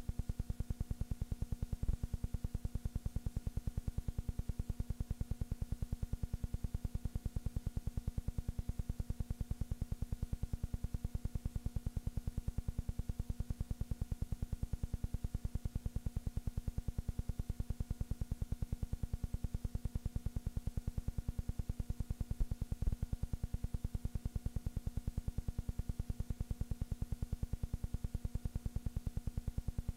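Steady low electrical buzz with a rapid, even pulse and faint steady hum tones above it, with two faint clicks, one about two seconds in and one a little past the middle.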